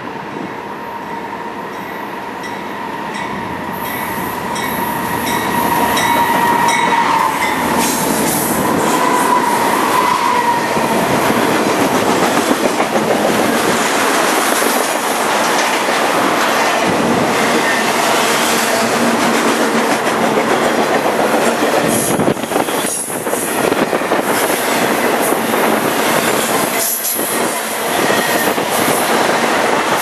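Norfolk Southern freight train going by at close range. Its GE Dash 9-40CW and EMD SD70 diesel locomotives grow louder over the first several seconds, then a long string of intermodal trailer-on-flatcar cars clatters past on steel wheels. A thin steady whine runs through the first ten seconds or so.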